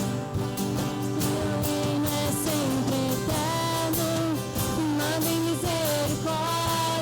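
Live worship music: a sung melody over a band with guitar and a steady beat.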